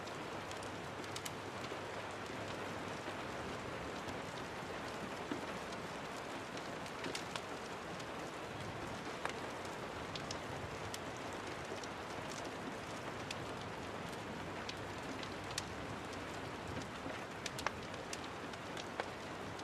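Steady rain falling, mixed with a fireplace, with scattered sharp crackles and pops every second or so.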